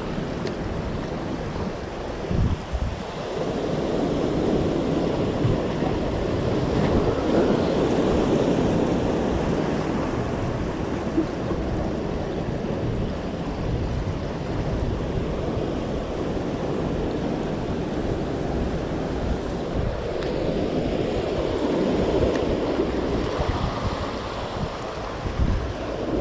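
Sea surf washing and churning against breakwater rocks, surging louder twice, with wind buffeting the microphone.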